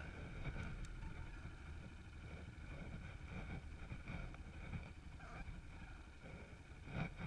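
Off-road dirt bike engine running at low trail speed, muffled, with wind on the microphone. A single knock near the end.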